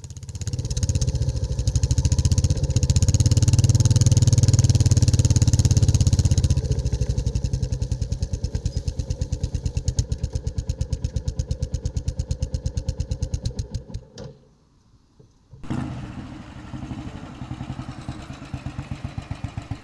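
Royal Enfield single-cylinder motorcycle engine running with an even, thumping beat. It is loudest for the first few seconds, then settles into a slower steady thump and cuts out about fourteen seconds in. After a brief near silence, an engine thumps again, quieter.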